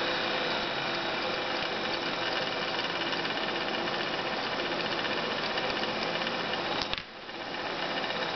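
Small 12 V DC blower fan running steadily with a hum and whine, its speed turned down through a small 50-ohm trimmer resistor. About seven seconds in there is a click, the sound drops sharply and then builds back up.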